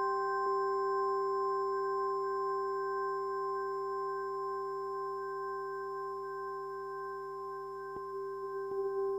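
Electronic synthesizer drone: several steady pure tones held together as a sustained chord, with a faint click about eight seconds in and the middle tone starting to waver near the end.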